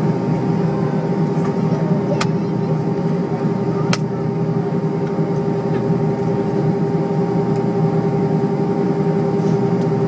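Steady cabin noise of an Airbus A320 on the ground with its jet engines idling: a constant rushing hum with a steady whine on top. Two sharp clicks stand out, about two and four seconds in.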